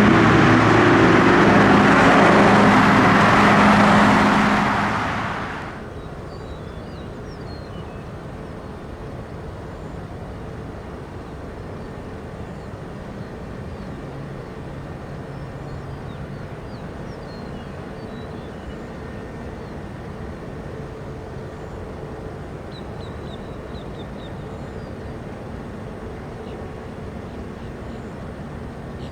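Jet airliner engines running loud, fading away about five seconds in. After that, a quiet steady outdoor hum with faint bird chirps.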